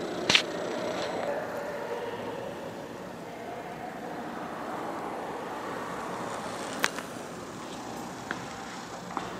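Steady interference noise picked up by the camera's recording, a continuous hiss-like hum with faint wavering tones. A sharp click comes just after the start, another about seven seconds in, and two fainter clicks near the end.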